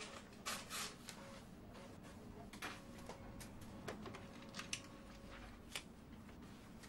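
Faint scattered clicks and taps, with a short rustle about half a second in, over a low steady room hum.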